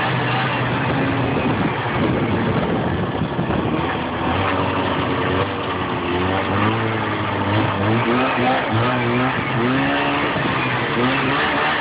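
Snowmobile engine running under way, its pitch rising and falling with the throttle, over a steady rushing noise.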